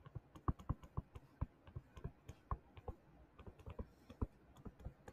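Stylus tapping and clicking on a tablet or touchscreen during handwriting: a run of faint, irregular short clicks, a few a second.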